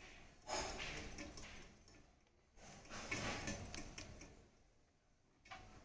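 Rope drawn hand over hand through a well's overhead pulley, hauling up a metal bucket: three sliding pulls, each a second or two long, with short pauses between them.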